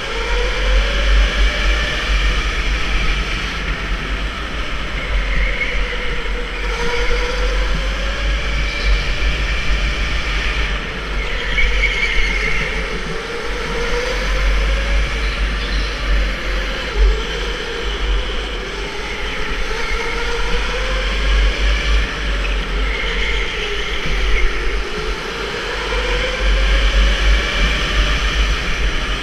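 Electric go-kart motor whining, its pitch rising and falling every few seconds as the kart speeds up on the straights and slows into the corners, over a heavy low rumble of wind and vibration on the microphone.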